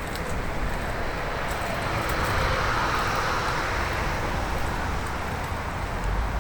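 A car passing on the road, its tyre noise swelling to a peak about three seconds in and then fading, over a steady low rumble.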